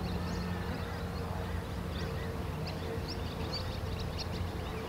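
Outdoor field ambience: a steady low hum with many short, high chirps scattered throughout.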